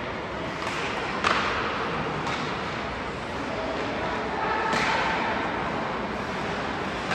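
Ice hockey play on the rink: a few sharp clacks of sticks and puck, the loudest about a second in, and a scrape of skate blades on the ice near the middle, over the steady hubbub of the arena.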